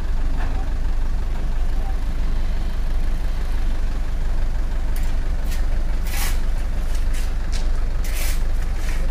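Diesel dump truck engine running with a steady low rumble. From about five seconds in, a series of short, sharp hisses, two of them longer.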